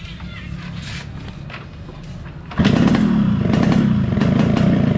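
Yamaha RX-King single-cylinder two-stroke motorcycle engine being tuned: it runs quietly at first, then the throttle is opened about two and a half seconds in and it revs up suddenly and holds at a loud, high rev.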